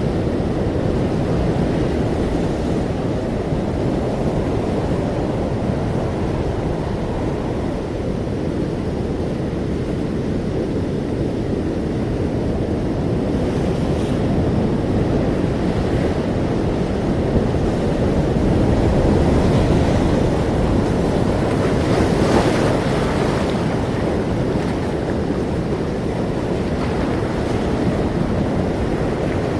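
Ocean surf: a steady low rush of waves, swelling about two-thirds of the way through as a larger wave breaks, then settling back.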